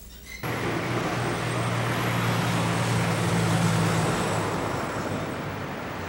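Road traffic: a motor vehicle's engine running close with a steady low hum over road noise. The sound cuts in abruptly about half a second in, and the engine hum fades out about four seconds in while the road noise goes on.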